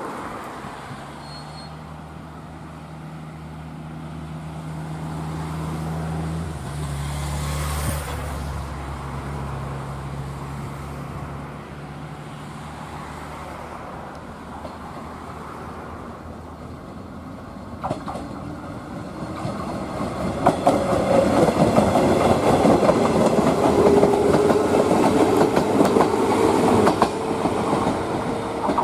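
Shinano Railway 115 series three-car electric multiple unit running through the station. A steady low hum comes first; from about two-thirds of the way in, the wheels clatter louder over the rail joints, with a whine, as the cars pass.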